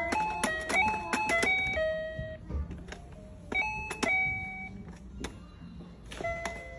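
Children's electronic toy piano sounding as a toddler presses its keys: a quick run of beeping notes in the first two seconds, a few more about three and a half seconds in, and another pair near the end.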